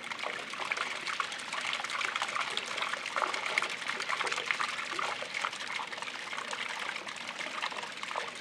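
Water running from a small spout into a concrete trough, a steady trickling and splashing.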